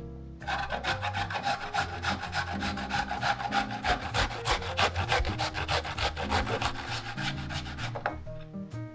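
Cucumber being grated on a stainless-steel box grater: quick, even rasping strokes that start about half a second in and stop shortly before the end.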